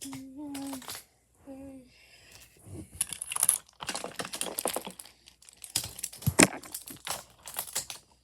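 A voice hums a short steady note about a second long. Then wooden toy trains and track pieces clatter and knock against each other in quick irregular clicks while being handled, with one louder knock past the middle.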